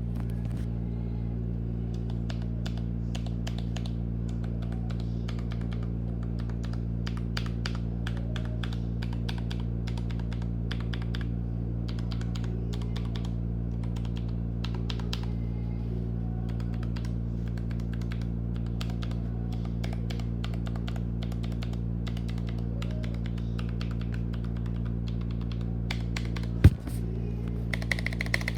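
Typing on a Redragon K621 Horus TKL mechanical keyboard with linear switches: irregular key clacks over a steady low hum. Near the end there is one loud knock.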